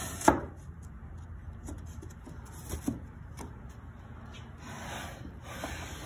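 A thin wooden cabinet back panel sliding down into the grooves of the cabinet sides, wood rubbing and scraping on wood, with a sharp knock about a quarter second in and a few light taps after it.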